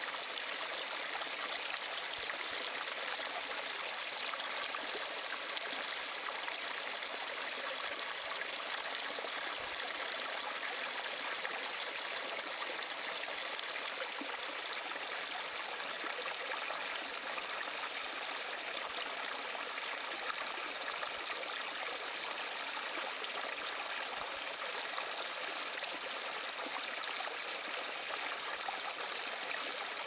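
Shallow brook babbling steadily, an even rush of running water with no breaks.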